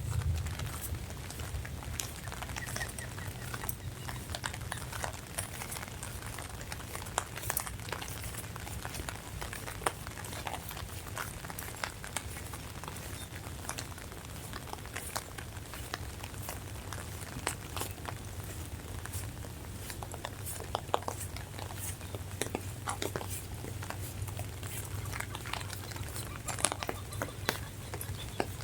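Rain falling, with irregular drops tapping sharply on an umbrella close overhead, over a low steady hum.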